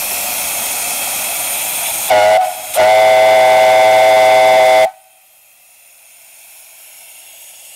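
Antique brass steam whistle on a fire-tube steam boiler, hissing loudly as steam escapes through it, then sounding a short blast and a longer blast of about two seconds that cuts off sharply, leaving a faint hiss.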